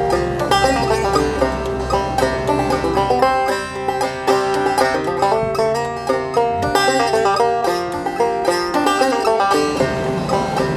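Background music led by plucked strings, the deep bass dropping out about three and a half seconds in.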